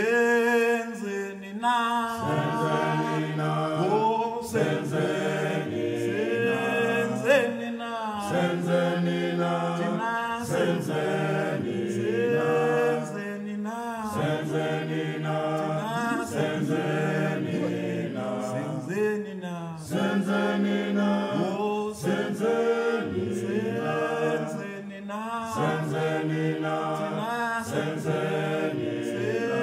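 Choral vocal music: a group of voices singing a chant-like song.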